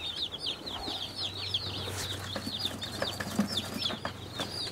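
Day-old Meat King (Cornish cross) broiler chicks peeping in a cardboard box: a rapid, continuous string of high, short, falling cheeps from several chicks at once.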